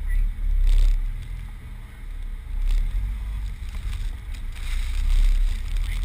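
Jeep Wrangler driving slowly on a snow-covered road, heard as a heavy low rumble with wind buffeting the microphone. The rumble swells just after the start and again about five seconds in.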